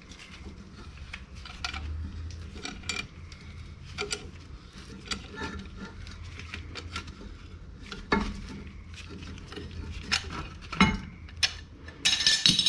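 Metal tools and brake parts clinking and knocking as they are handled, a string of separate clanks with a louder cluster near the end.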